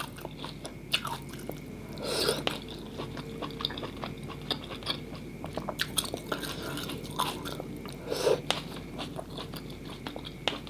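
Close-up mouth sounds of a person eating Quảng noodles and soft tofu: wet chewing with many small clicks and smacks, and two louder mouth noises about two seconds in and about eight seconds in.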